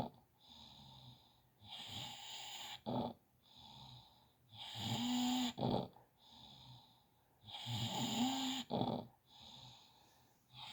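Snoring: three loud, rough snores about three seconds apart, each ending in a short sharp catch, with a softer breath between them.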